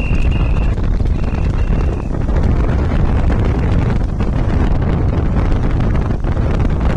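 Heavy wind buffeting on the microphone and the rumble of a moving vehicle as the camera rides alongside a horse racing cart. A high beeping tone sounds twice in the first two seconds.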